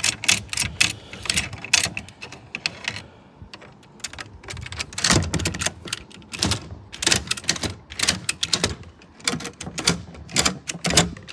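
Rapid metallic clicks from a door lock mechanism being worked by hand, with a short pause about three seconds in.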